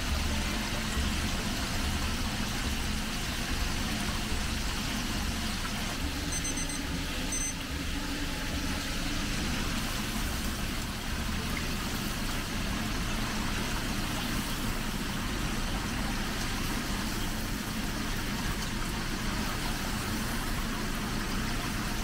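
Bone-in chicken pieces frying in a commercial deep fryer, the hot oil bubbling and sizzling steadily, with a low rumbling hum underneath.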